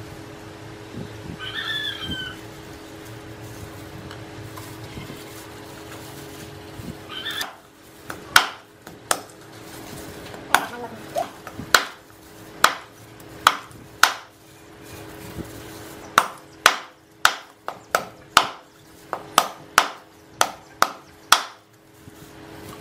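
Heavy cleaver chopping raw chicken into bone-in pieces on a thick round wooden chopping block: a long run of sharp chops, about one or two a second with short pauses, starting about a third of the way in.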